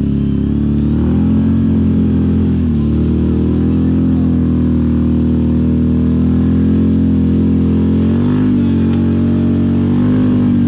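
ATV engine running at high, steady revs, dipping briefly about two and a half seconds in and again about eight seconds in.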